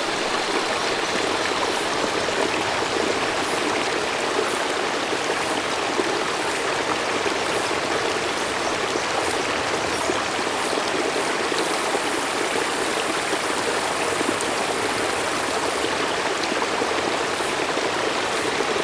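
Mountain stream flowing, a steady, unbroken rush of running water.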